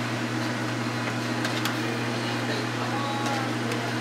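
A whisk clicking a few times against a glass dish as an egg-and-milk mixture is beaten, over a steady low hum.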